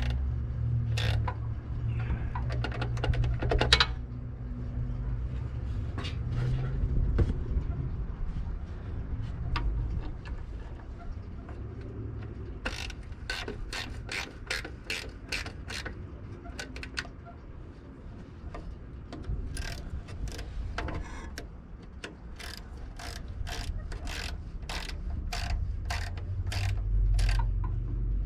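Ratchet wrench clicking in runs of quick, evenly spaced strokes as the oil pan bolts are tightened, over a steady low rumble.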